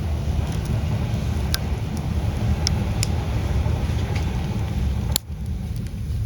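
Wood campfire crackling, with a few sharp pops and a louder one about five seconds in, over a steady low rumble.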